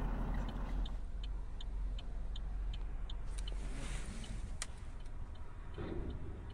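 Steady low vehicle rumble heard from inside a cab, with light regular ticking about three times a second through most of it.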